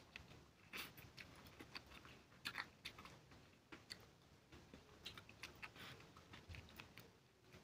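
Someone eating by hand from a steel plate: quiet chewing with irregular lip smacks and small sharp clicks.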